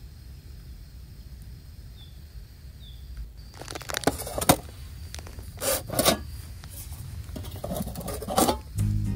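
Aluminium military-style mess tin (hangō) being handled: a few sharp knocks and scrapes as its metal lid is lifted and set against the pot. Before that, a quiet outdoor background with two faint short chirps; music comes in just at the end.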